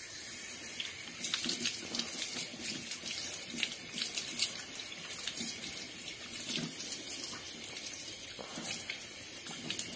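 Water running from a wall tap with a flexible spout extension onto hands being rubbed and rinsed under the stream, with steady splashing. The flow starts suddenly right at the beginning as the tap is opened.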